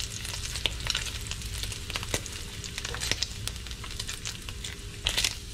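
Bacon frying in hot grease in a cast iron skillet: a steady sizzle broken by sharp crackling pops, with a louder run of pops about five seconds in.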